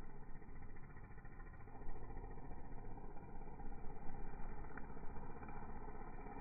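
String trimmer's small engine running steadily while cutting ditch grass.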